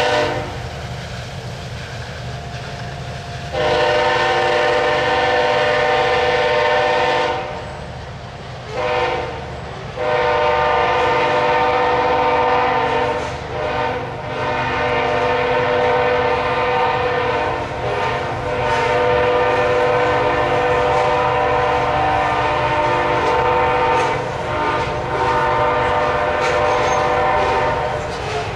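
Nathan K5HLL five-chime horn on a BNSF ES44AC diesel locomotive. It comes in a few seconds in and sounds a long blast, then a short one, then a long blast held with brief dips almost to the end. Under it, loaded coal hoppers rumble steadily past.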